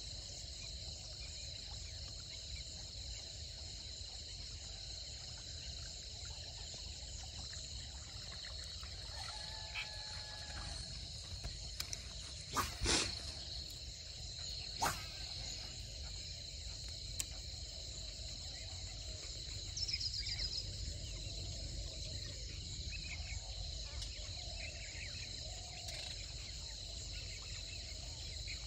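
Steady chorus of crickets and other insects, a continuous high trill, with a couple of sharp clicks about halfway through.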